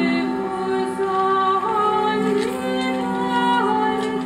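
Medieval music: a bowed vielle (medieval fiddle) holds steady low drone notes under a slow melody that moves in small steps, with voices singing along.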